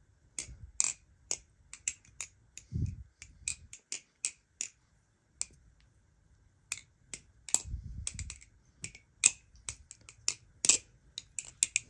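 Marcolo Comet balisong being flipped: the handles and blade clack against each other in quick, irregular clicks. There are two duller thuds, about 3 and 8 seconds in.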